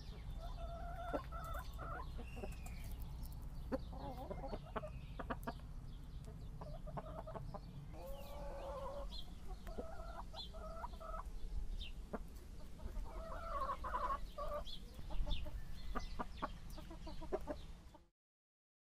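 Chickens clucking: a run of short, repeated calls, with sharp clicks and a low rumble underneath. The sound cuts off suddenly near the end.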